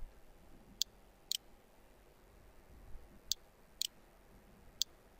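Computer mouse clicking: five short, sharp clicks in pairs about half a second apart.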